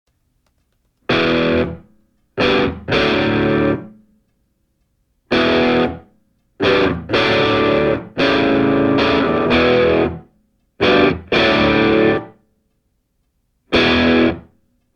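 Background music: distorted electric guitar chords played in short stop-start bursts, each ringing for about a second with silent gaps between.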